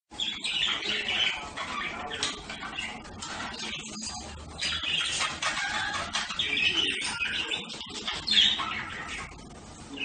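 Budgerigars chattering and warbling: a continuous stream of overlapping chirps.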